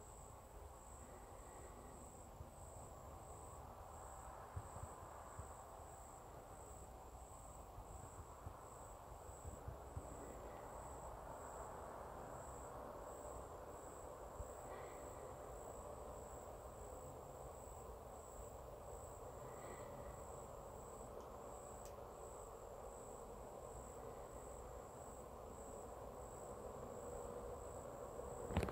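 An insect, likely a cricket, trilling steadily at a high pitch in even pulses about twice a second, over a faint steady hiss. A single sharp click comes right at the end.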